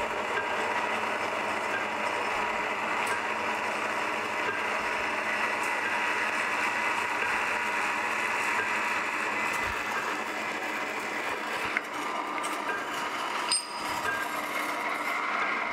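Marvel metal-cutting band saw running under power feed, its blade cutting steadily through a steel-looking jaw-blank bar with a steady whirring hiss. A couple of light clicks come near the end as the cut goes through.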